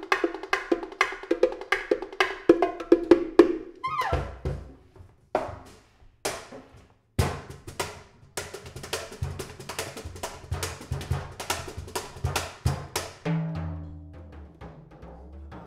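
Improvised percussion on a drum kit and hand percussion. For the first few seconds there are rapid wooden clicking strikes over a held tone. After that comes a run of low drum hits, and near the end some low, pitched drum strokes.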